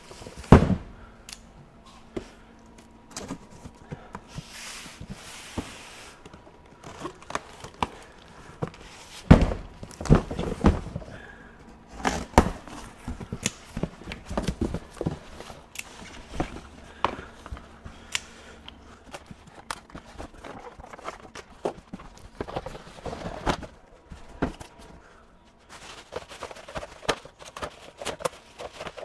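A cardboard box being unpacked on a workbench. It is set down with a loud thump, then handled with more heavy thumps and knocks, scraping cardboard and crinkling plastic wrap as the contents come out.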